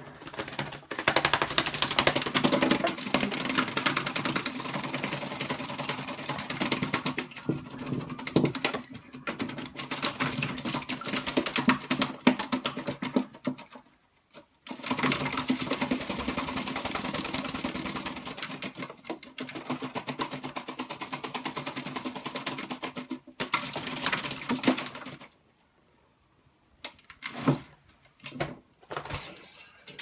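Black-capped lory bathing in a plastic water dish: rapid wing-flapping splashes in two long runs with a short pause about halfway. The splashing stops a few seconds before the end, and a few scattered taps follow.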